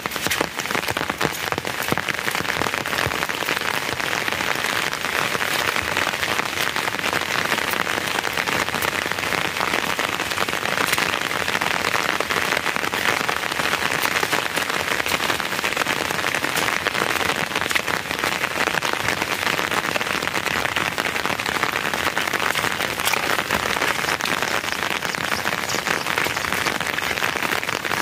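Steady, dense rain-like patter: an even hiss made of many small ticks that keeps the same level throughout.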